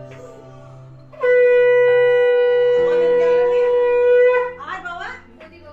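A conch shell (shankha) blown in one long, steady note of about three seconds that wavers as it breaks off, the call that marks a Hindu blessing ritual. Soft background music runs underneath.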